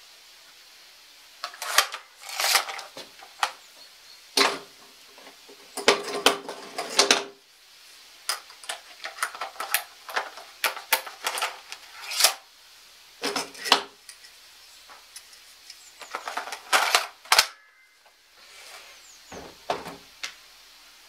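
Sharp plastic-and-metal clicks, clacks and rattles in irregular bunches as a Paslode cordless framing nailer is handled and its magazine worked by hand, then a couple of dull knocks as it is set down on a wooden table near the end.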